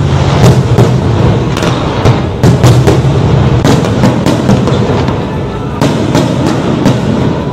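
Fireworks display: sharp bangs and pops going off irregularly, about two a second, over loud music.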